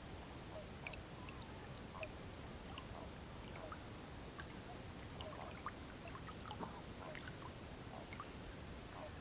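Lake water lapping and trickling quietly at the shore, with many short scattered chirps and clicks over a faint steady hiss.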